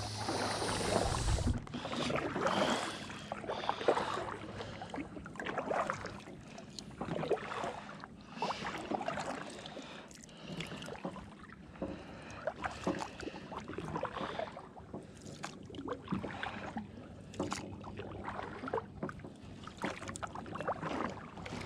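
Kayak paddling: a double-bladed paddle dipping and pulling through calm water, stroke after stroke about once a second, with splashes and drips off the blades.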